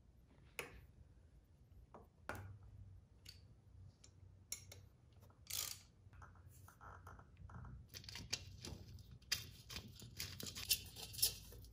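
Faint, scattered clicks and knocks of hand tools and parts being handled while a front fender lift bracket is fitted to a motorcycle, with a few short squeaks partway through and a denser run of clicking and rubbing over the last few seconds as the fender is handled.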